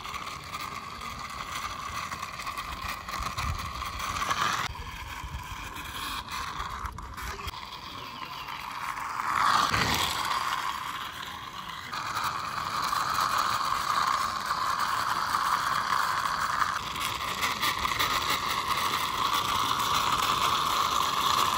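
Plastic toy crane truck pushed by hand along a concrete wall, its wheels and gears whirring steadily in several pushes, loudest about halfway through.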